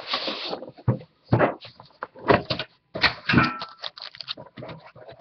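A hard trading-card box being opened by hand: the lid rubbing and knocking as it comes off, with a series of sharp knocks and rustles, and a foil-wrapped pack crinkling as it is lifted out of the box.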